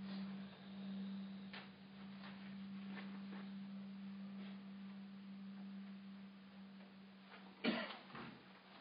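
Quiet room tone with a steady low hum, faint scattered rustles of paper being handled, and one louder sudden noise about eight seconds in.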